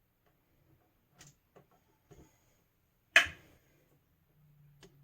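Small clicks and one sharp, loud click about three seconds in, from hands working a screwdriver and wires on a GFCI outlet's screw terminals. A faint low hum starts near the end.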